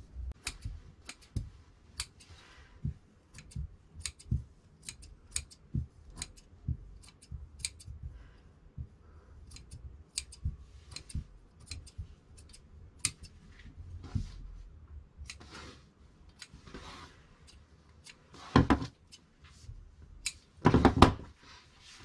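Tailor's shears snipping thread, short sharp clicks about two a second, as tailor's tacks are cut through the cloth. Near the end, two louder rustles of the cloth pieces being handled.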